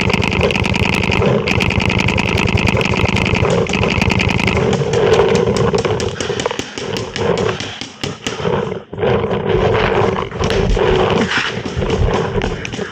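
Heavy, panting breaths close to the microphone. A fast run of paintball marker shots pops in the first few seconds.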